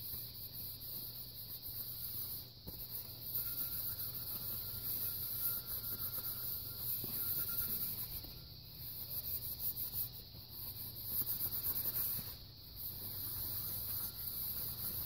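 Cloth rag rubbing oil over a Griswold cast iron skillet, applying a thin oil coat between seasoning rounds in uneven wiping strokes, with brief pauses as the pan is turned.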